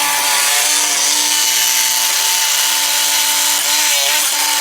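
Power tool cutting through a plastic bumper cover, running with a steady whine and hiss, wavering briefly about four seconds in.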